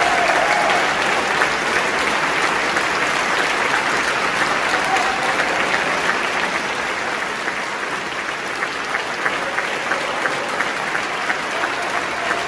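Audience applauding: a dense, steady wash of clapping with individual claps standing out, easing a little after about eight seconds.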